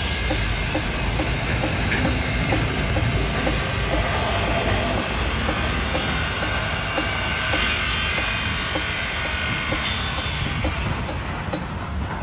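Heavy machinery running with a low rumble and a steady high-pitched whine; near the end the whine rises briefly, then slides down and fades.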